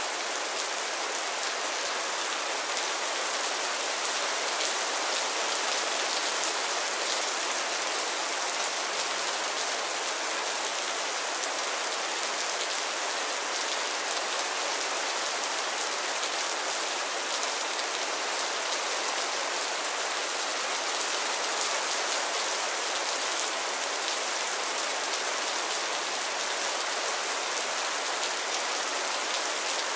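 Mild rain falling steadily on a roof and the ground: an even hiss of many small drops, mostly high in pitch, with no let-up.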